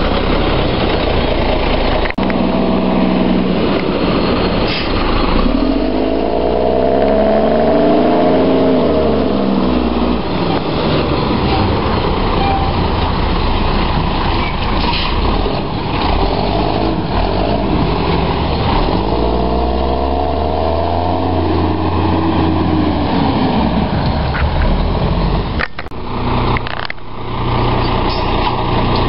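Front-end-loader garbage truck's diesel engine running, its revs rising and falling back twice in long sweeps between stretches of steady running.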